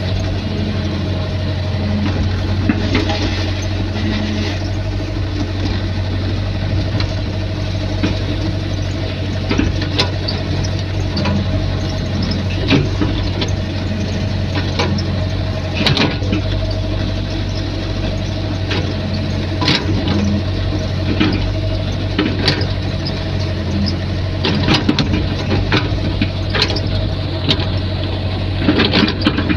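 Excavator engine running steadily, with scattered sharp metallic clanks and knocks and a brief squeal a few seconds in.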